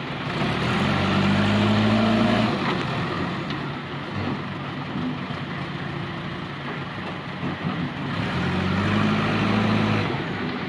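JCB backhoe loader's diesel engine running, swelling louder twice for about two seconds each as it works the loader bucket, lifting mud into a tractor trolley.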